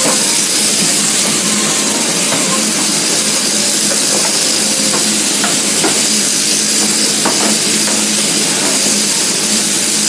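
Machine sheep-shearing handpiece running steadily through a sheep's fleece, a continuous whirring hiss over a steady low hum from the shearing plant's drive.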